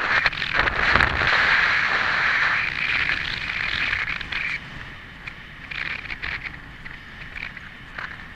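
Wind rushing over a helmet-mounted camera's microphone as a horse canters across grass, with scattered soft knocks of hooves and tack. The rushing is steady for the first four and a half seconds, then drops away to a quieter hiss.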